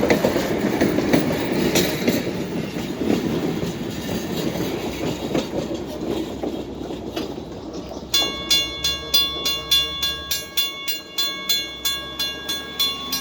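Train rolling past, with wheels clicking over rail joints. About eight seconds in, a railroad crossing signal bell starts ringing in rapid, even strikes, about three and a half a second.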